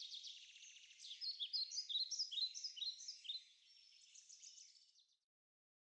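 Faint birds chirping: a string of short, quick chirps, busiest from about a second in and fading away shortly before the end.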